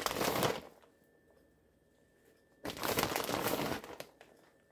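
Plastic bag of shredded cheese crinkling as it is handled. It comes in two bursts: one at the start and another from about three seconds in, with a quiet gap between.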